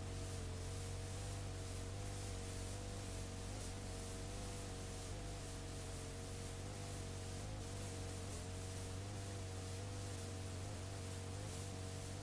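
Unrecorded videotape playing back: steady tape hiss and mains hum, with a pair of faint, slightly wavering tones.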